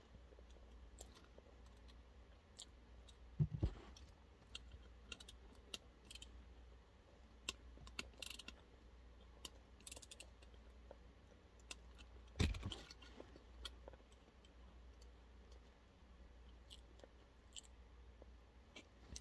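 Faint scattered clicks and light taps of tools and small parts being handled while taking apart an old toy, with two louder knocks, one about three and a half seconds in and one about two-thirds of the way through.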